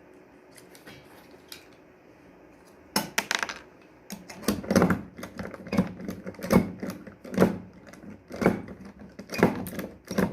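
Work on a shower's sliding-door fittings: after a few faint seconds, sharp clicks, then a run of regular knocks about once a second.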